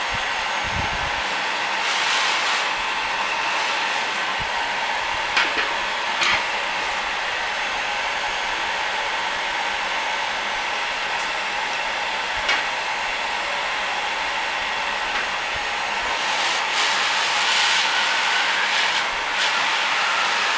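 Heat gun running steadily, a continuous rush of hot air from its nozzle. A few short, sharp clicks sound over it about five to six seconds in and again near twelve seconds.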